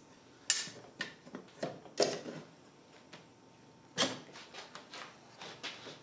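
Irregular knocks and thumps from a small rubber cart tire being handled and set down on a plastic folding table, the sharpest about half a second, two and four seconds in.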